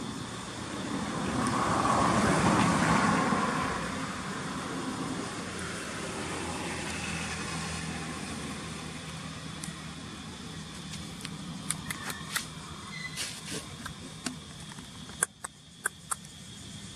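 A road vehicle passing by, swelling and fading over about three seconds near the start, over a steady outdoor hum. Several sharp clicks come in the last few seconds.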